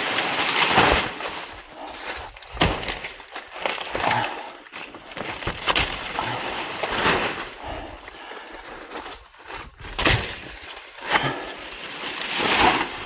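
Chopping blows into plantain stems: a few sharp cuts spread through, amid rustling and crackling of dry plantain leaves.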